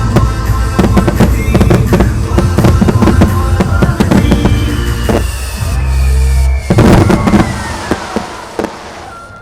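Aerial fireworks shells bursting in quick succession over loud music, with a final dense volley about seven seconds in, after which the bangs and music fade.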